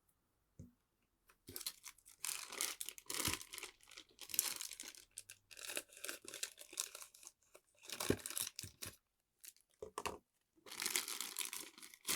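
Figure packaging being opened by hand: plastic wrapping crinkling and tearing in a run of rustling bursts, with a short pause before a final burst near the end.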